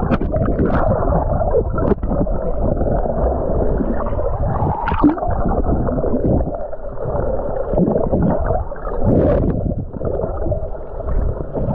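Muffled sound of moving water picked up by a camera held under water: a steady, dull rush with no high sounds above about 2 kHz.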